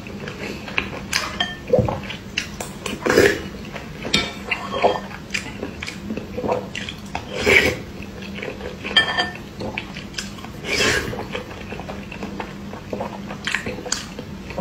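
Close-up eating sounds of a person chewing and biting whole boiled eggs in irregular mouthfuls, with a spoon clinking against the bowl now and then.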